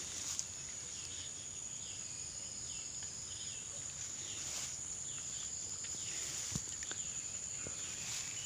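Steady high-pitched drone of insects, with short falling chirps repeating every half second or so over it.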